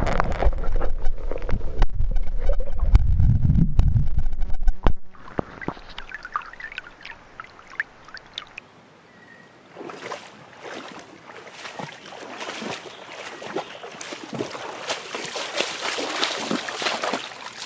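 Water moving around a camera held underwater: a loud low rumble with many clicks for about five seconds. After a cut, irregular splashing and dripping as a hooked brook trout is lifted from the stream and handled.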